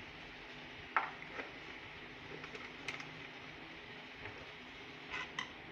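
Quiet room tone with a low steady hum and a few faint light clicks, the sharpest about a second in.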